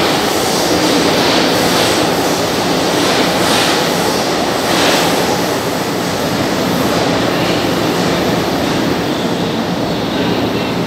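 São Paulo Metro Line 1 train pulling away along the tunnel, its running noise loud and steady. A few short surges of higher noise come in the first five seconds, and the sound eases slightly as the train recedes.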